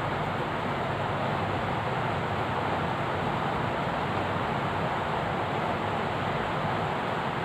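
Heavy rain falling steadily, an even rushing noise with no breaks or distinct impacts.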